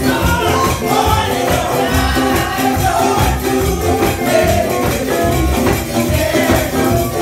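Women's gospel choir singing through microphones, backed by a steady percussion beat.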